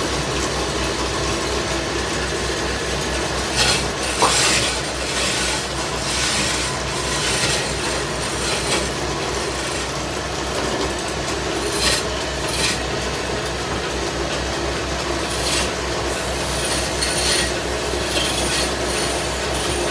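Wood lathe spinning a lacquered wooden cot leg, a steady low motor hum underneath. A hand-held stick of coloured lac pressed against the turning wood rubs against it in irregular scratchy bursts.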